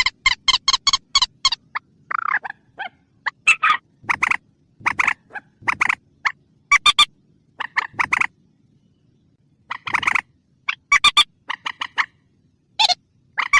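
Lure recording of a mandar (a rail) calling: runs of short, sharp, repeated notes, several a second, broken by brief pauses.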